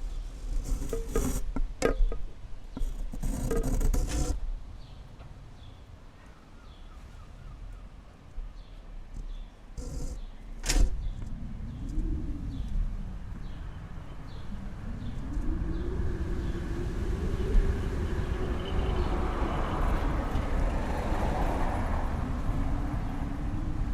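Outdoor ambience with a few sharp knocks in the first seconds and another about eleven seconds in, faint repeated high chirps, then a low rumble that swells up and holds through the second half.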